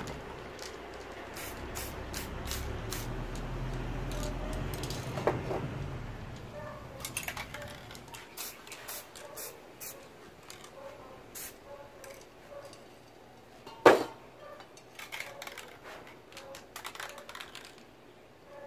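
Aerosol spray paint hissing from a can in short bursts, the nozzle tapped on and off in quick dabs. A single sharp knock about three quarters of the way through is the loudest sound.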